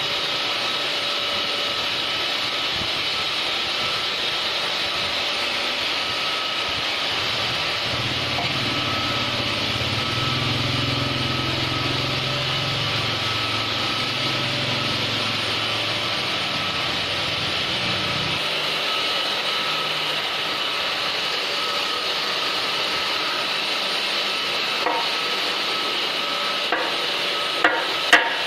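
Steady whirring of a woodworking power tool running on wood, with a few sharp knocks near the end, as of wood being tapped together.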